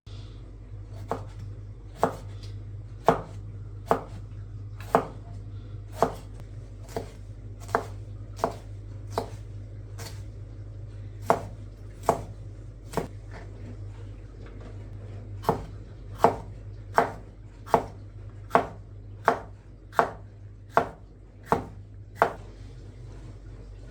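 Knife chopping on a cutting board in slow, separate strokes, about one a second, with a couple of short pauses, over a steady low hum.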